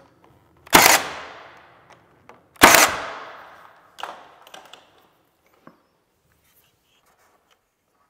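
Cordless finish nailer firing twice into wood trim casing, two sharp shots about two seconds apart, each with a short ringing tail. A few lighter clicks follow.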